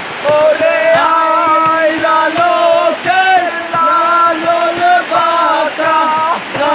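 Informal group singing of a song, voices holding long notes, over a steady tapping beat.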